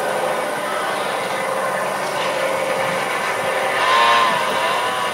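Film soundtrack played over loudspeakers: a steady engine-like drone, with a louder wavering tone about four seconds in.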